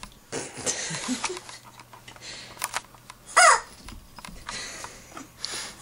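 Rubber chicken dog toy squawking once about halfway through, a short honk that falls quickly in pitch.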